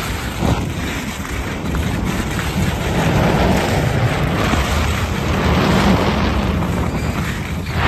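Wind rushing over the microphone with the steady hiss of skis sliding on packed snow on a downhill run, growing louder about three seconds in.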